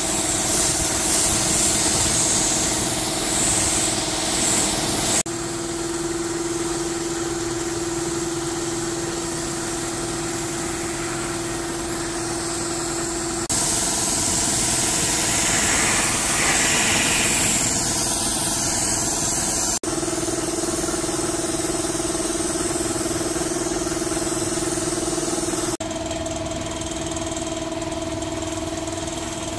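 An engine or motor running steadily with a constant hum and hiss. The sound changes abruptly several times where clips are cut together.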